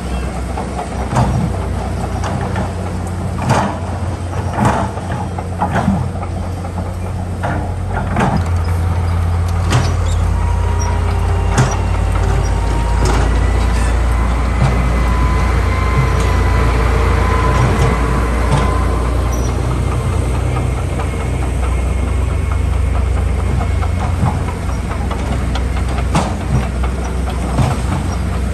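Heavy diesel construction machinery running with a steady low drone. Sharp clanks and knocks come through in the first several seconds, the engine works harder from about eight seconds in, and a thin whine sounds for several seconds around the middle.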